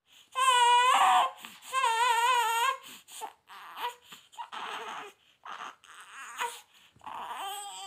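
Newborn baby crying: two loud, wavering wails in the first three seconds, then softer, shorter whimpers with catches of breath between them, building into another cry near the end.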